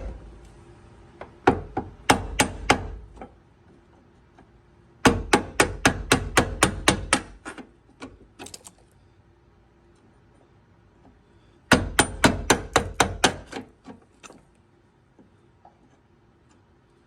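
Rapid hammer blows on a car door hinge, driving out a rusted, seized hinge bushing, in three bursts of about four strikes a second with pauses between.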